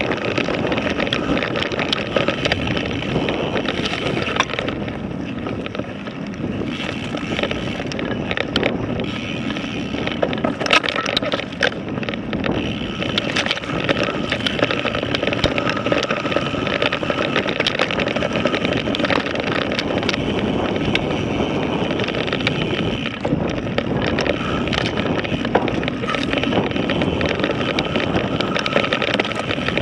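Mountain bike riding down a rough dirt singletrack: steady tyre and wind noise with frequent sharp clattering knocks as the bike and its handlebar-mounted camera jolt over rocks and ruts.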